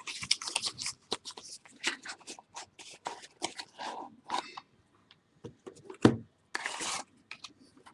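Trading card packaging and cards being handled: irregular scraping and crinkling as a sealed pack is opened and the cards are pulled out, with a thud about six seconds in followed by a short burst of crinkling.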